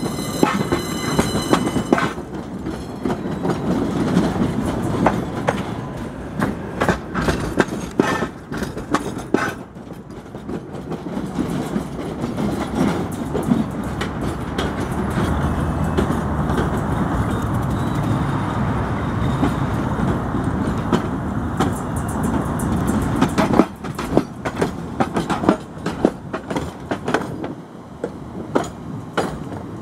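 Tatra T3-family trams rolling past on street track: a steady rumble with many sharp clacks as the wheels cross rail joints and switches, thickest early on and again near the end. A brief high-pitched ringing tone sounds right at the start.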